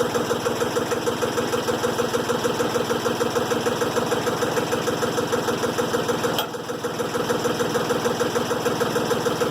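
Diesel engine idling steadily with an even, fast knock, briefly dipping with a click about six and a half seconds in.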